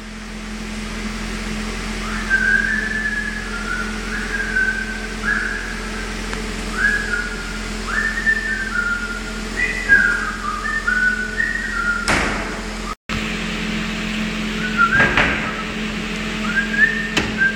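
A person whistling a tune, a string of held notes that step up and down in pitch, over a steady low hum. A few sharp knocks cut in, one just before the sound drops out for a moment about thirteen seconds in.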